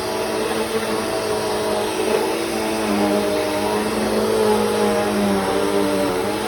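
Bissell CleanView 3536 upright vacuum cleaner running steadily while vacuuming, its motor hum shifting slightly in pitch as the load changes.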